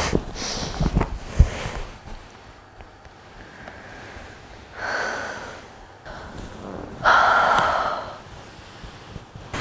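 Clothing rustles with a few soft knocks as a woman shifts on a leather sofa, then two breathy sounds from her: a short one about five seconds in and a longer, louder one about seven seconds in.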